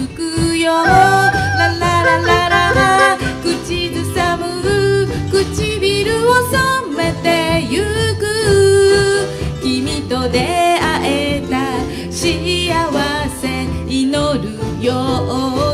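A small band playing a song on erhu, ukulele, acoustic guitar and a Roland electronic drum kit, with a sliding, wavering melody line on top.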